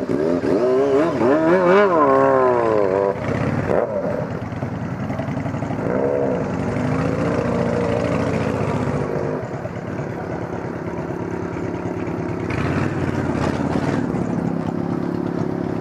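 Yamaha motorcycle with a straight-through exhaust being revved in throttle blips, the engine note rising and falling, twice short and once longer, then settling back to a steady idle. Short exhaust pops sound as the throttle is let off.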